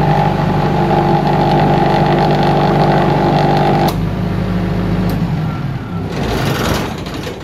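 Engine of a 20 kVA generator set running steadily under load from a salt-water bucket load bank. About four seconds in its note drops and thins, and a brief rushing hiss comes near the end before the sound falls away sharply.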